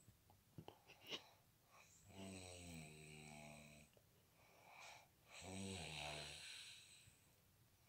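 A man snoring in his sleep: two long snores, each a second and a half to two seconds, about three seconds apart. A few short faint clicks come in the first second.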